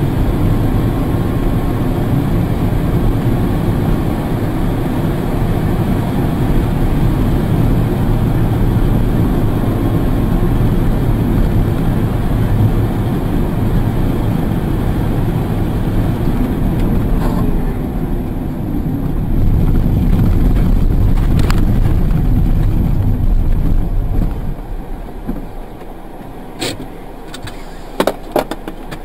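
Steady car road and engine noise heard from inside the cabin while driving at speed. Near the end it dies down as the car slows and stops, and a few sharp clicks follow.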